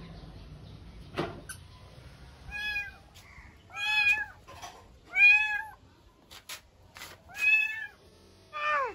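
Kittens mewing: about five high-pitched mews, each about half a second long, a second or so apart. A few small clicks fall between them.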